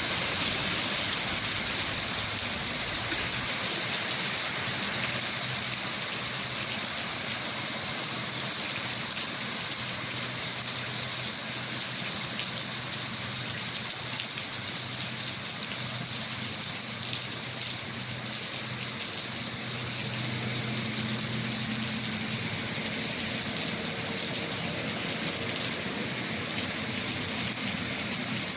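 Heavy rain pouring down in a steady, even hiss with no let-up.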